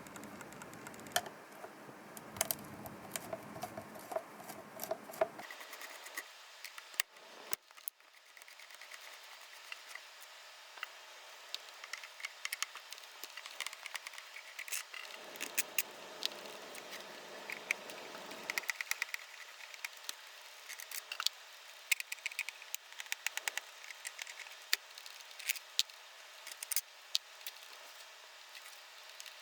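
Scattered small clicks and taps of hands working with small tools and parts, with two stretches of low rustling, one at the start and one about halfway through.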